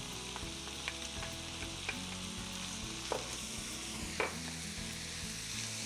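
Diced smoked sausage, bacon and chopped onion sizzling in a frying pan while being stirred with a spatula. A few light clicks of a utensil against the pan stand out about two, three and four seconds in.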